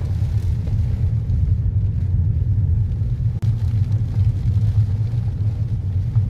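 Steady low rumble inside a moving car's cabin: tyre and road noise on a wet road, with the engine underneath.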